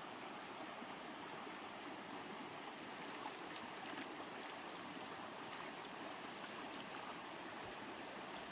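Shallow rocky stream rushing steadily over stones, with a few faint splashes as hands dip into the water about halfway through.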